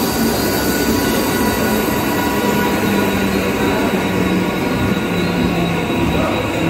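Mumbai suburban electric multiple-unit train (Central Railway, ICF-built) running past the platform: steady rumble of wheels on rail with a steady high hum over it.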